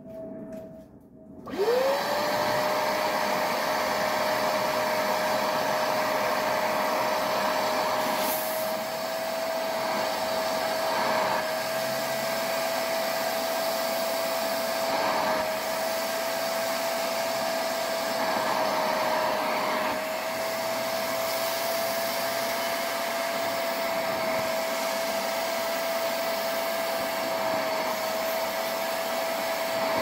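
A portable carpet extractor's motor switches on about a second and a half in and spins up quickly to a steady whine. It then runs on while its handheld nozzle is worked over a carpet mat, shampooing it, with the pitch wavering slightly.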